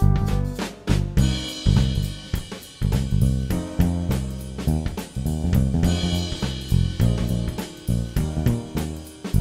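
Background music with a steady beat on a drum kit over a pitched bass part.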